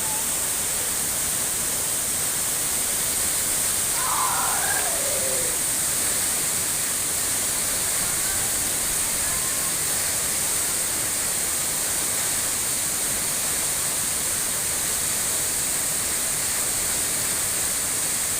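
Waterfall rushing: a steady, even wash of water noise. About four seconds in, a brief call falls in pitch over it.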